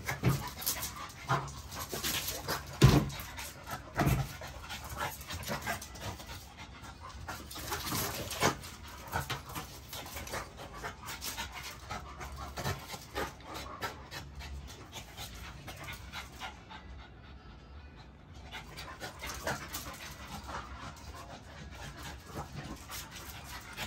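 An XL pitbull puppy and a French bulldog wrestling: dogs panting, with irregular scuffling and clicks of paws and claws on concrete, and a sharp knock about three seconds in.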